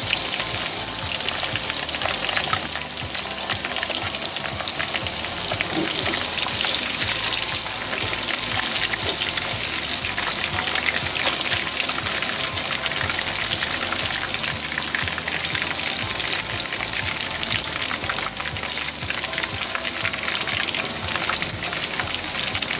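Chicken karaage deep-frying in a pan of hot oil: a steady, dense sizzle full of fine crackles.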